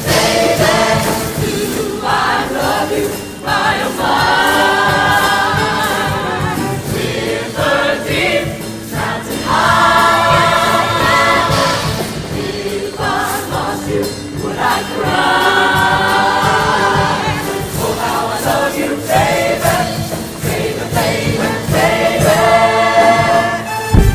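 High school show choir singing in full chords, with long held phrases of a couple of seconds each over a steady musical accompaniment.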